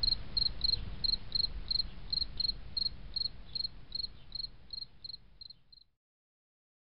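A cricket chirping in a steady rhythm of about three short, high chirps a second over a low rumble, fading out near the end.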